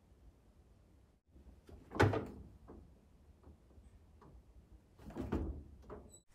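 Household knocks and thuds, as of a door or drawer being shut: one loud knock about two seconds in, a cluster of softer knocks a little after five seconds, and a few small clicks between.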